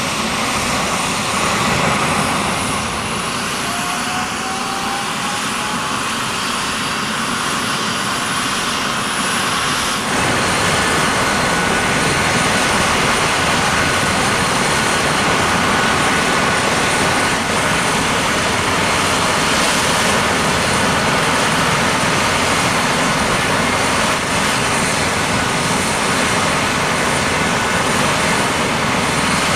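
Eurocopter EC135 helicopter's twin turboshaft engines running up after start, a high turbine whine that rises over the first couple of seconds and then holds steady over a constant rush of engine and rotor noise. The sound grows louder about ten seconds in and then runs steadily.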